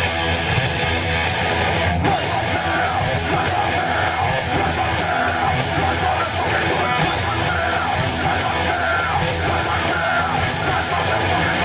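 Heavy rock band playing loud and live, with yelled vocals coming in over the band about two seconds in.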